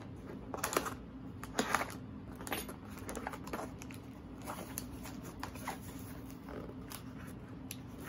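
Cardboard mailing box being opened by hand: irregular rustles, scrapes and light knocks of the paperboard as its flap is folded back and the packed contents are slid out.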